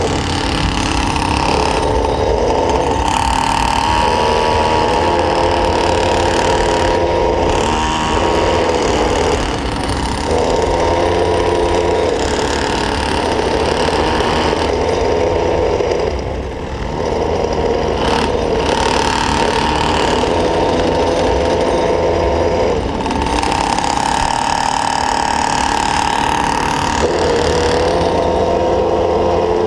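Small two-stroke engine of a stand-up gas scooter (GoPed type) running under way, its buzzing pitch stepping up and down as the throttle changes and easing off briefly about halfway through, over a rumble of wheels on asphalt.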